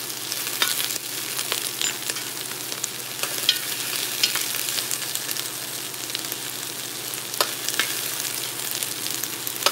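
Chopped onions, peppers and green onions sizzling in oil in an enamelled cast-iron pot, with a steady hiss. A metal ladle stirs them, clinking against the pot now and then.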